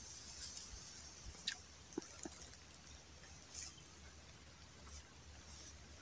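Faint outdoor quiet: a low hiss with a thin, steady high tone, broken by a few small clicks and a brief soft rustle a little past halfway.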